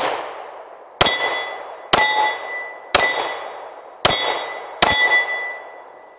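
Springfield Armory XDM 10mm pistol firing five shots about a second apart, each followed by the clear ringing of a struck steel plate target that fades before the next shot.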